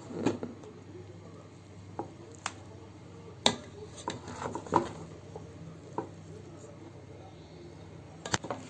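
A spoon stirring and scooping cooked biryani rice in a multicooker's inner pot, lifting it from the bottom, with scattered clinks and scrapes against the pot over a low steady hum.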